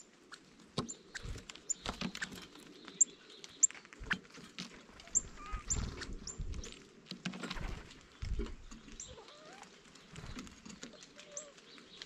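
Birds at a feeder: scattered taps and knocks, a few low thumps, and short, thin, high chirps that recur irregularly every second or so.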